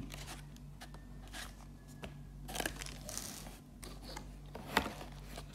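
Paper, cardboard and plastic wrap rustling and crinkling as the packaging of a boxed radio is handled, in short scattered bursts with a longer rustle about three seconds in and a sharp tap near the end.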